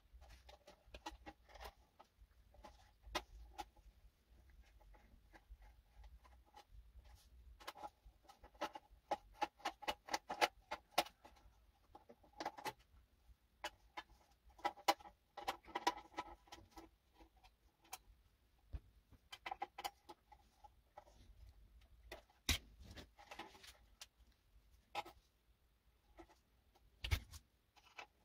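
Small screwdriver turning screws out of a mixer's metal case: faint clicking and scraping that comes in runs of rapid ticks, with a few sharper single knocks as the case is handled.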